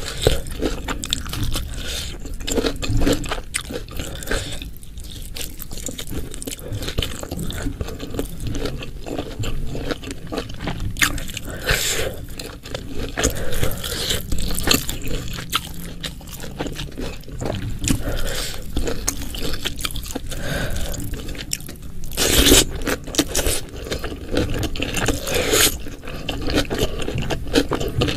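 Close-miked eating sounds: chewing and crunching through a meal of spiced beef, pickled vegetables, fried stink beans and rice, mixed with scraping, and several louder bursts near the middle and end.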